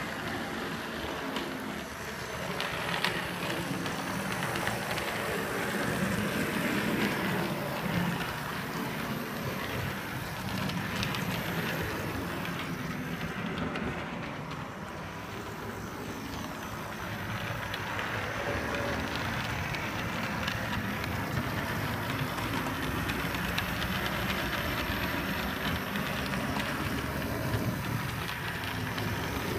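Model camel-class steam locomotive and tender running along the layout track: a steady whirr of the motor and wheels rolling on the rails, with light clicks.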